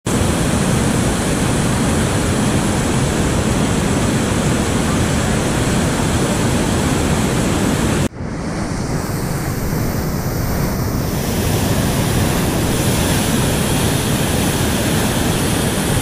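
Class V whitewater rapids rushing loudly over and between boulders, a steady, full-bodied rush of water. A sudden brief dip about halfway, then the same rush carries on.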